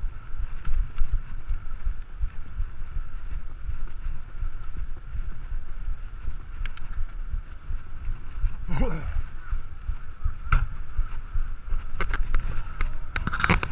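Wind buffeting an action camera's microphone on a moving Specialized Stumpjumper mountain bike, over a steady low rumble from the tyres on asphalt. Near the end come sharp clicks and rattles as the bike rolls onto brick pavers.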